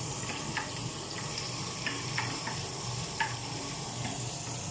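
Chicken wings sizzling in a covered pan as their cooking water boils down: a steady hiss with a few scattered small pops.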